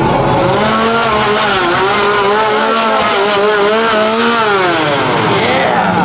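Chainsaw engine revving, its pitch wavering up and down, then dropping off about five seconds in.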